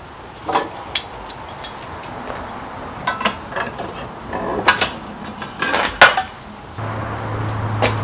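Steel parts clinking and knocking against the bench vise and each other as they are handled and set up for tack welding. About seven seconds in, a steady low electrical hum starts.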